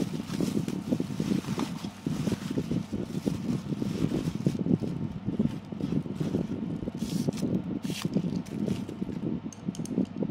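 Thin plastic cling film and a plastic bag rustling and crinkling as they are peeled back from a foam takeaway box, with sharper crackles about seven to ten seconds in. A steady low rumble runs underneath.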